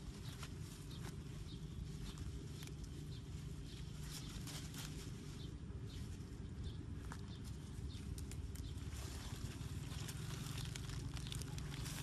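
Scattered light rustles and clicks of grass, leaves and stems being handled and trodden by feet in flip-flops, over a low steady rumble.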